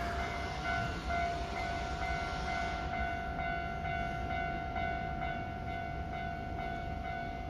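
Japanese railway level-crossing warning alarm ringing steadily, a fixed electronic tone with higher overtones over a low background rumble.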